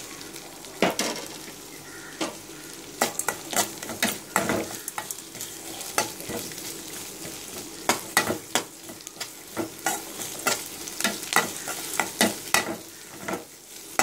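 Onions and tomatoes sizzling as they fry in oil in a metal kadai, stirred with a metal spoon that scrapes and knocks against the pan in frequent, irregular sharp clacks.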